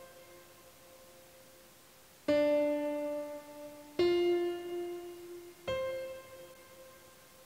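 Background piano music: slow chords struck three times, about a second and a half apart, each left to ring and fade.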